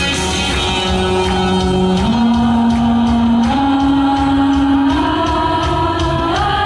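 Live pop music with a band backing: long sung notes, each held about a second and a half, climbing step by step, with a quick slide up near the end.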